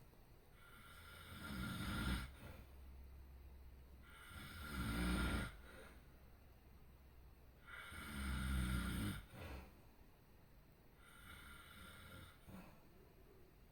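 A sleeping person snoring: three loud, low snores at a steady pace, about three and a half seconds apart, then a softer, breathier one near the end.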